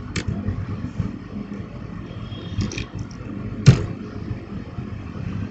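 A few keyboard key clicks while code is typed, the loudest a single sharp click about two-thirds of the way through, over a steady low background rumble.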